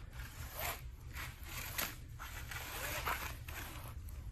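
Mini Miller flexible-shaft cable sliding by hand into its oiled hose as it is wiped with a rag: irregular rubbing, scraping strokes, one with each push.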